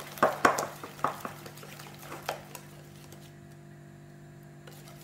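Wire whisk beating an egg, sugar and cornstarch mixture in a glass bowl, the whisk clinking against the glass several times before the whisking stops after about two and a half seconds.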